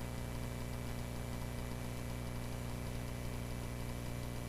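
Steady low hum with a faint fast ticking, the background noise of a light aircraft's radio and intercom audio between transmissions.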